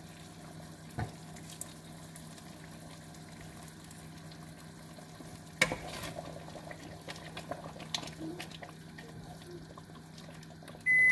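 A pot of stew simmering while it is stirred with a spoon, with scraping and a few sharp knocks of the spoon against the pot, the loudest about halfway through, over a steady low hum. Just before the end a loud, steady high-pitched electronic beep starts.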